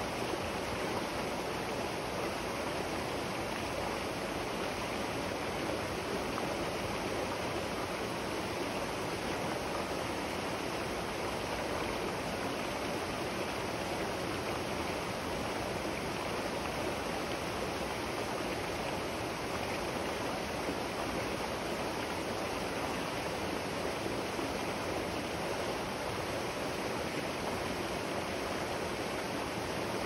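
River water flowing, a steady, even rush that does not change.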